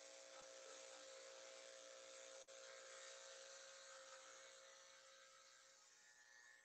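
Electric dog grooming clippers running with a faint, steady buzz as they trim the fur on a poodle's paw. There is a brief click about two and a half seconds in, and the buzz fades near the end.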